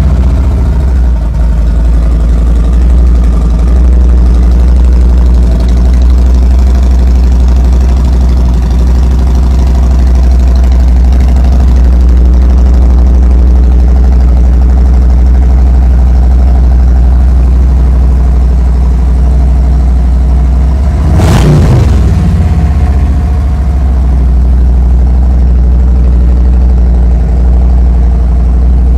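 Motorcycle V-twin engine idling loudly through slip-on mufflers with the baffles pulled and small lollipop inserts fitted, with one short rev about two-thirds of the way through.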